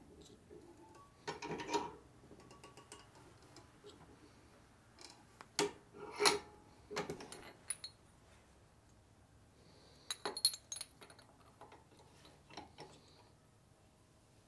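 Small metal motorcycle water-pump parts, a gear and its shaft, clinking and knocking as they are handled and worked on, in three short clusters of sharp metallic knocks.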